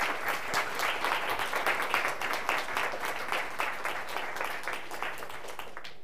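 Audience applauding with many overlapping hand claps, easing slightly and then stopping abruptly near the end.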